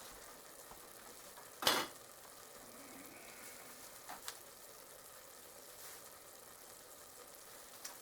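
Freshly cooked ground beef sizzling faintly in the hot pot, with one sharp clank about two seconds in and a couple of lighter knocks later.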